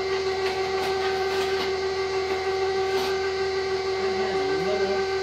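KitchenAid stand mixer motor running its meat grinder attachment, a steady even whine with a few faint clicks.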